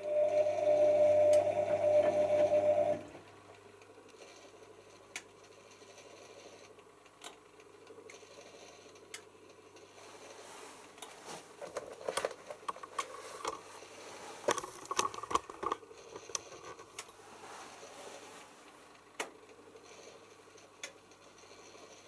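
Bosch WFM4030 front-loading washing machine tumbling wet laundry in a rinse. The drum motor hums loudly with a steady tone for about three seconds and then stops. After a quiet spell, water and wet laundry splash and knock in the drum with scattered light clicks.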